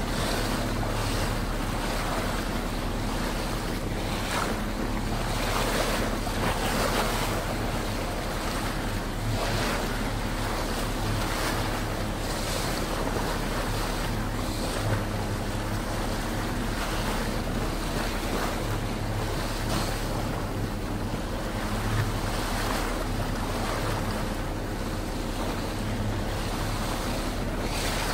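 Water washing around a slow-moving boat and wind buffeting the microphone, with brief louder swishes every few seconds. Under it runs a steady low hum from the boat's engine.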